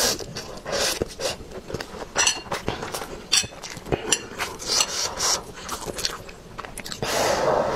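Close-miked eating of Buldak fire-chicken noodles: wet chewing and mouth sounds, with metal chopsticks clicking against the plate, and a longer noodle slurp near the end.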